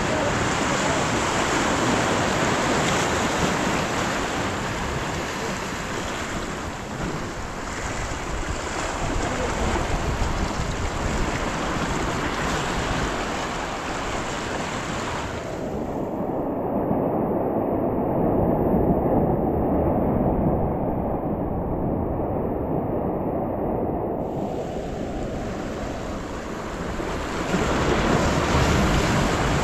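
Shallow surf washing around the wader's legs, with wind buffeting the microphone. For several seconds in the middle the sound turns muffled.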